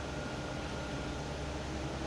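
Steady background hiss with a low hum, with no distinct sounds standing out.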